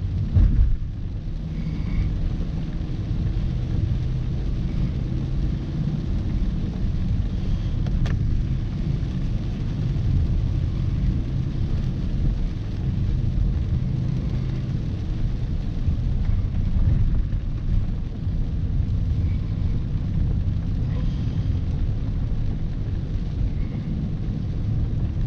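Steady low rumble of a Range Rover Sport driving on a wet gravel road, heard from inside the cabin: tyre and road noise, with the engine's hum underneath.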